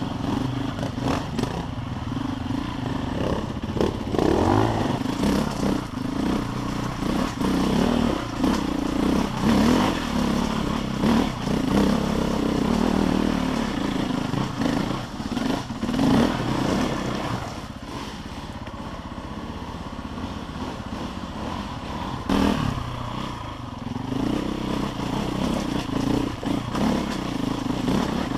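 KTM EXC enduro motorcycle engine revving up and easing off as it rides a rocky, rutted trail, with clattering knocks from stones and the bike's chassis. It drops to a lower, quieter run for a few seconds past the middle, then picks up again.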